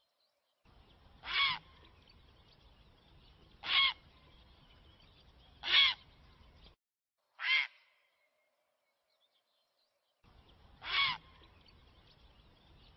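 Grey heron giving five short, harsh calls, about two seconds apart with a longer pause before the last. It is a spliced recording: a faint background hiss drops to dead silence around the fourth call and returns near the end.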